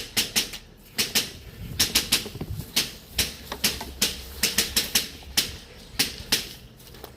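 A run of sharp, irregular clacks, about two or three a second and often in pairs.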